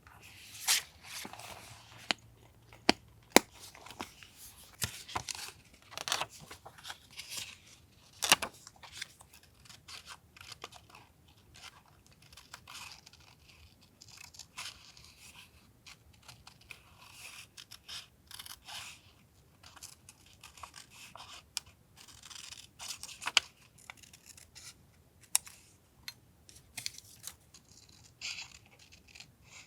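Paper being handled for a journal collage: rustling, tearing and light taps and clicks in short, irregular bursts.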